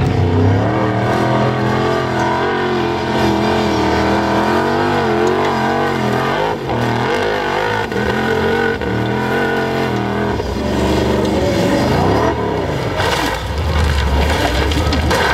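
Formula offroad buggy's engine revving hard, its revs held high and swinging up and down as it claws up a steep dirt slope. Its revs rise and fall sharply a little after ten seconds in, and there are several knocks near the end as the buggy rolls over down the hill.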